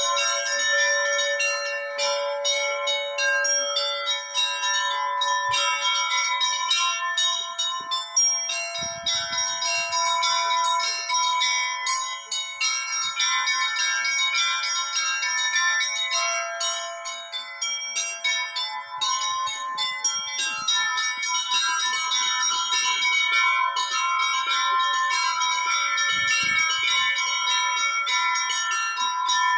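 Church bells ringing: many bells struck in quick, overlapping succession, their tones ringing on into one another without pause.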